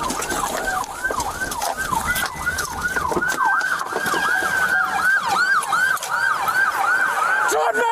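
Several police car sirens on a fast yelp, their rising-and-falling wails overlapping, two to three sweeps a second.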